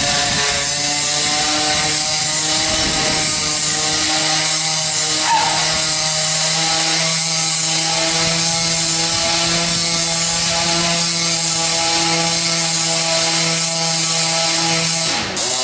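Small two-stroke petrol engine of a large-scale Carbon Fighter RC buggy running with a steady buzz at fairly constant revs, cutting off abruptly just before the end.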